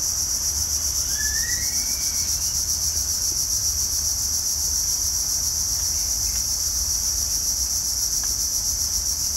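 Dense tropical insect chorus: a loud, steady, high-pitched pulsing drone. A faint bird call glides upward about a second in, over a low rumble underneath.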